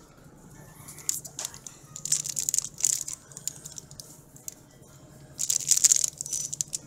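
Plastic packaging of a packaged pancake crinkling as it is picked up and handled, in two stretches of crackling, the louder one near the end.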